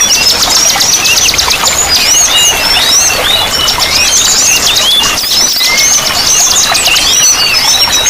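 Several small songbirds singing at once in a dense chorus of fast trills and short sweeping chirps, over a steady hiss of running water.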